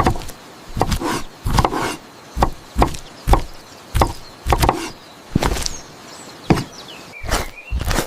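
Knife chopping on a cutting board: about a dozen sharp, unevenly spaced strokes.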